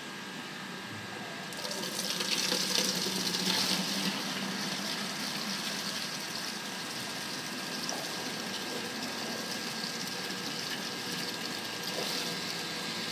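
Water rushing and splashing through a Reflux Classifier test rig. It gets louder about a second and a half in, then runs on steadily over a steady machine hum.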